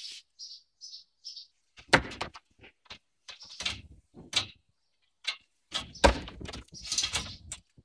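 Irregular knocks and scuffs as a ram and a goat butt and shove each other on a concrete floor. The sharpest knocks come about two seconds in and again near six seconds.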